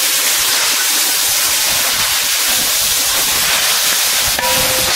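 Loud steady sizzling hiss of water boiling hard on a fried onion-and-spice curry base in a large metal pot, with Malabar tamarind (kudampuli) just added and steam rising.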